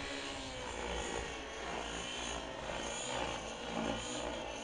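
Radio-controlled model helicopter flying overhead: a steady, pitched whine of its motor and spinning rotor blades.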